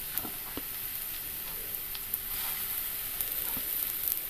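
Coconut oil sizzling steadily in a frying pan on a low flame as stuffed bread pockets are shallow-fried, with scattered small crackles.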